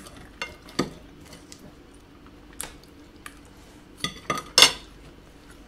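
Metal forks and knives clinking and scraping against plates in scattered strokes, with a cluster of louder clinks about four seconds in, the loudest about four and a half seconds in.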